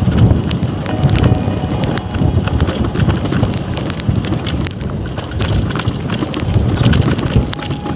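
Yamaha motorcycle riding over a rough dirt track: wind buffeting the microphone, with the bike knocking and rattling over the bumps.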